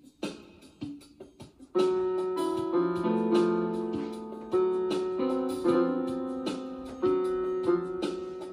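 Electronic keyboard playing held electric-piano notes and chords, a new note or chord struck every half second to a second. These are preceded by about a second and a half of short drum-like hits.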